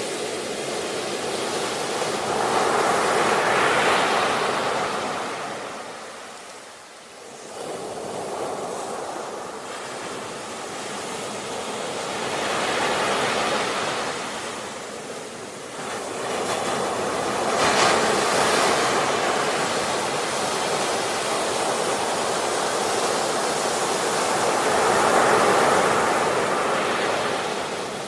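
Sea waves breaking on a shore: the surf swells and recedes about four times, with a brief lull about a quarter of the way in.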